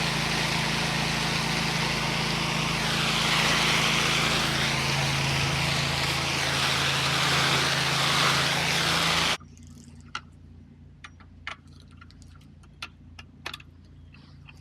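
8 gallon-per-minute pressure washer's gas engine running steadily under the hiss of its water spray, the hiss swelling and fading as the spray sweeps across surfaces. About nine seconds in it all cuts off suddenly, leaving only faint scattered clicks.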